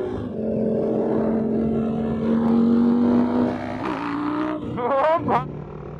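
Motorcycle engines on a group ride: a steady engine note climbing slowly, then two sharp, quick revs of a sport bike about five seconds in.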